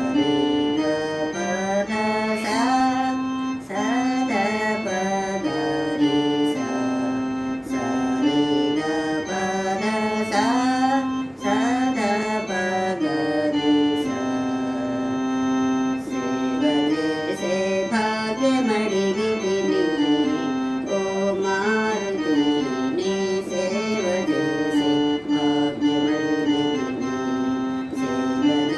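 Electronic keyboard played with an organ-like voice: a melody moving over long held notes, without a break.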